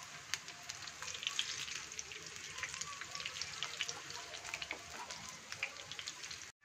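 Spinach-and-gram-flour fritters (palak pakode) sizzling and crackling as they deep-fry in hot oil, with scattered small pops over a steady hiss. The sound cuts off suddenly just before the end.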